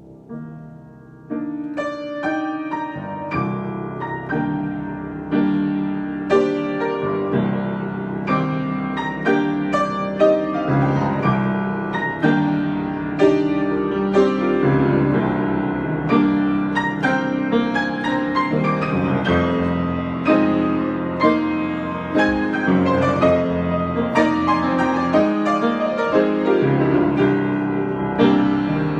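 Solo piano improvisation: chords and melody notes struck and left to ring, soft at first, then played louder from about a second in.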